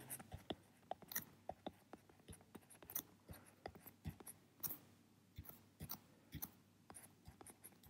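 Faint, irregular clicks and taps of a stylus on a tablet screen during handwriting, a few each second.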